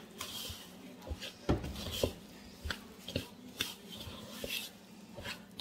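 A fork stirring soft scone dough in a large mixing bowl: irregular scrapes and clicks of the fork against the bowl, about two a second.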